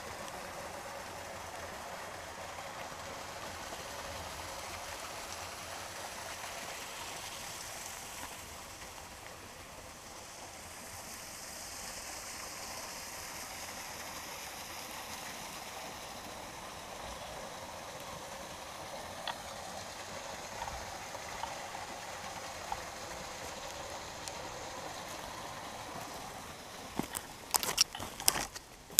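A small forest creek running steadily. Near the end, footsteps crunch and crack on the dry forest floor.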